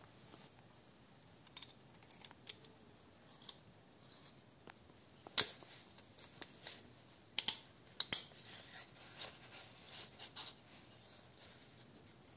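Scattered sharp clicks and clinks of a pneumatic drill's metal parts being handled and fitted together during reassembly, with a few louder clinks in the middle.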